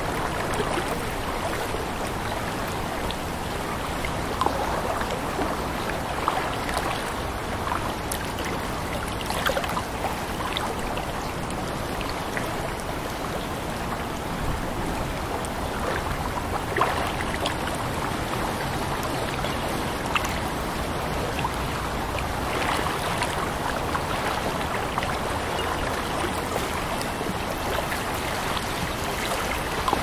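Steady rush of moving water with small scattered splashes and drips.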